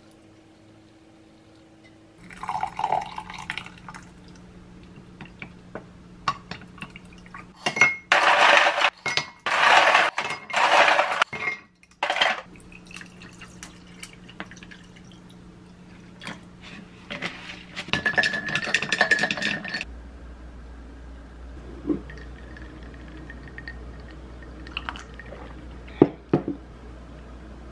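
Hot water poured from a kettle into a glass mug over a teabag. Then several loud clattering bursts of ice cubes in the glass, and ice clinking against the glass as the drink is stirred. A few light clinks of glass follow near the end.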